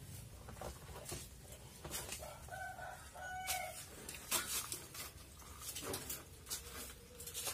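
Scattered metal clanks and knocks as a bicycle frame and wheel are pulled out of a pile of scrap metal. A rooster crows in two parts, starting about two seconds in.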